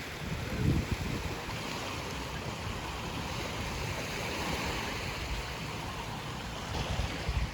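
Sea waves washing, with a swell that rises and falls over a few seconds, and wind rumbling on the microphone.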